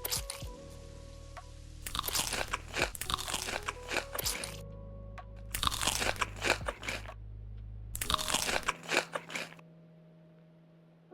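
Crisp food crunched in close-up bites and chews: a short crunch at the start, then three longer bursts of crunching, each a second or two. Soft background music plays underneath.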